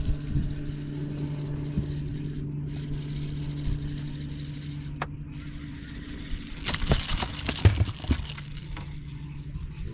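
A steady low hum on a fishing boat, then about seven seconds in a second and a half of rattling and scraping with sharp clicks.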